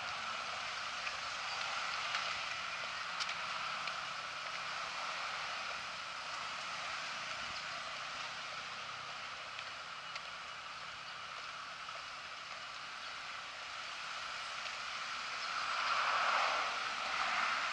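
Steady roadside outdoor hiss from traffic on a tree-lined street, with a car passing close by and swelling louder near the end.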